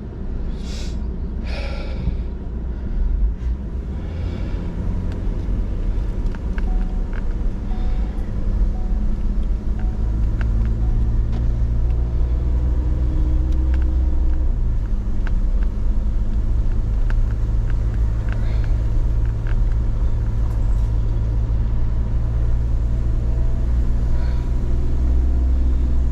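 Tow vehicle pulling a loaded car trailer on the road: a steady low engine and road rumble that builds over the first several seconds as it gets up to speed, with the engine note stepping down once about halfway through and small rattles and clicks throughout.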